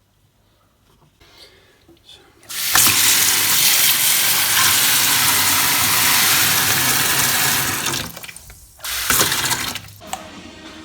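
Kitchen tap turned on full after fitting a new O-ring, water running hard into the sink for about five seconds, then shut off, followed about a second later by a second short burst.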